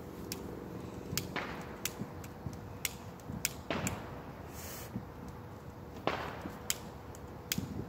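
Fireworks going off, a string of sharp cracks and pops at irregular intervals, with three heavier bangs about one and a half, four and six seconds in that echo briefly.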